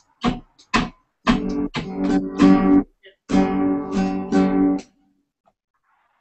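Acoustic guitar strummed in triplet groups, three strokes to each beat, as a practice exercise in evening out the strums before playing them swung. Two short single strums come first, then two runs of quick strums that ring on, and the playing stops about five seconds in.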